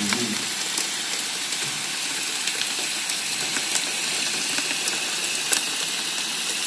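Heavy rain falling in a steady hiss, with a few sharp ticks of single drops.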